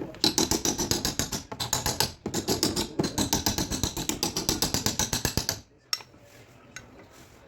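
Rapid, even tapping of a tool on a car body panel during paintless dent repair, about eight strokes a second, with two short breaks; it stops abruptly near the end and one more click follows.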